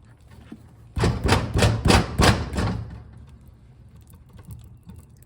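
Tire plug insertion tool being forced into the puncture in a riding mower tire: a burst of about six rough, rapid scraping strokes lasting about two seconds, starting about a second in.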